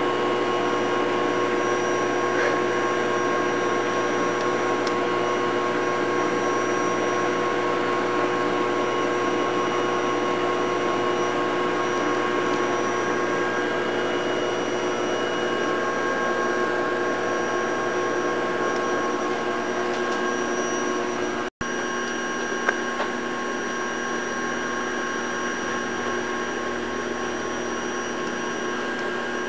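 Vacuum cleaner running steadily, a constant motor whine over a rush of air. It drops out for an instant about two-thirds of the way through, then carries on at nearly the same pitch.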